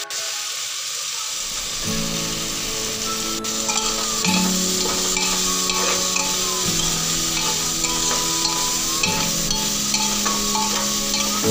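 Chopped onion, tomato and spices frying and sizzling in an aluminium pot, with a spoon stirring them.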